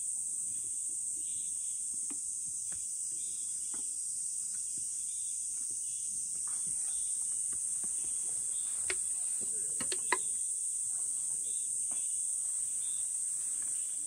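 Insects droning steadily in a high, continuous buzz, with a few light clicks and one small knock about ten seconds in.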